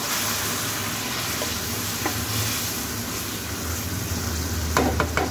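Minced mutton sizzling in hot oil in a steel pan while being stirred with a wooden spatula, with freshly added liquid ginger-garlic paste being mixed in. A few sharp knocks of the spatula against the pan near the end.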